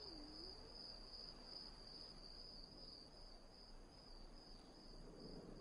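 Faint, steady high-pitched trill of insects, with a slight pulsing.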